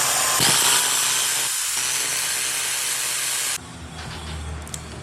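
Makita 9557NB angle grinder running at full speed, a loud steady hissing whine that cuts off suddenly about three and a half seconds in. A quieter low hum follows.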